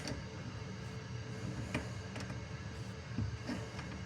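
A few faint, scattered clicks and light taps of hand tools working on faucet supply-line fittings, over a low steady room background.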